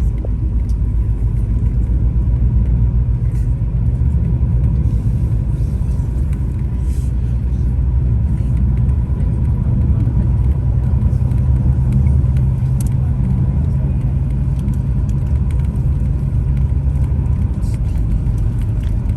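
Tour bus driving: a loud, steady low rumble of engine and road noise with a faint constant hum.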